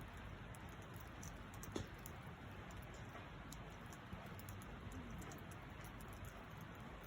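Campfire crackling: a steady faint hiss with irregular small snaps and pops, one sharper pop a little under two seconds in.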